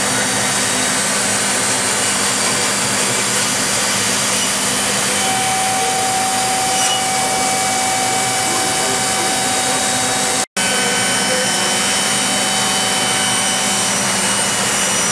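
Busellato CNC machining centre running, its router spindle milling wood under the dust-extraction hood: a loud, steady noise with a few steady high tones. A steady whine joins in about five seconds in and fades near the end. The sound cuts out for an instant a little past ten seconds in.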